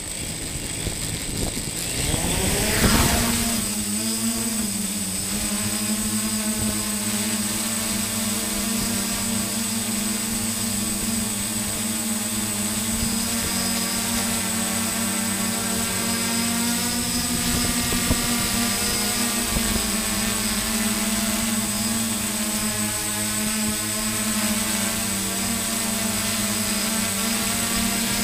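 Multirotor drone's electric motors and propellers spinning up for takeoff, rising in pitch over the first few seconds. Then a steady buzzing whine as it hovers and flies, its pitch wavering slightly.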